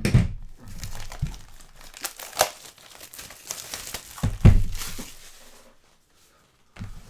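Plastic trading card packaging crinkling and tearing as a box of basketball card packs is opened, with a few sharper crackles among the rustling; it dies away about six seconds in.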